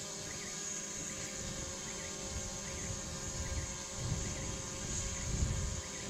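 Fire burning out of a microwave oven's door, set alight by running the oven with empty aerosol cans inside. A low, gusty, fluttering rumble grows stronger about two seconds in, over a steady high hiss and faint repeated chirps.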